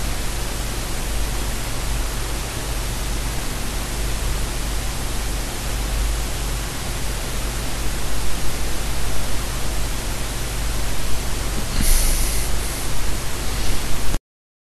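Steady hiss of static-like noise with a low hum underneath. It grows louder and more uneven over the last several seconds, brightens briefly about twelve seconds in, then cuts off suddenly.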